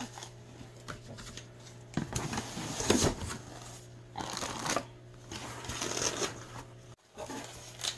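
Cardboard box and its packing being handled, with several bursts of rustling and scraping.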